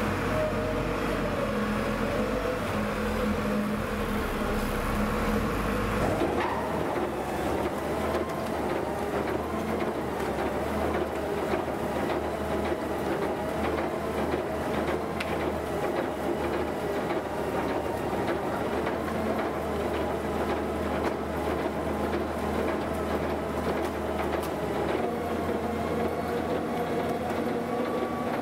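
Wheel loader's diesel engine running with a REMU hydraulic screening bucket. From about six seconds in, the bucket's rotating screening discs run steadily, a dense continuous clatter as compost is shaken and sifted through.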